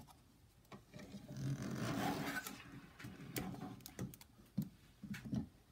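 Handling noise: a sleeve and hands brushing across a cloth work mat with a rustle, then several light clicks and taps as small parts are picked up and moved.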